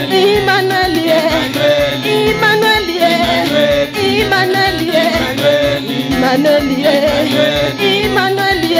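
Live gospel praise music: a woman singing into a microphone over electronic keyboard and a steady beat.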